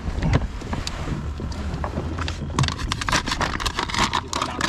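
Wind buffeting the microphone on open water, with a steady low rumble. From about two and a half seconds in there is a quick run of knocks and clatter from handling on the boats.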